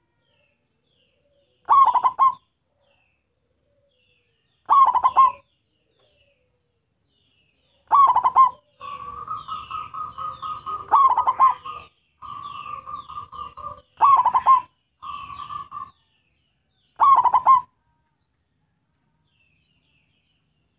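Caged zebra dove (perkutut) singing its short staccato cooing phrase six times, about every three seconds. Quieter, level trilling runs and faint chirps fill the gaps between calls in the middle stretch.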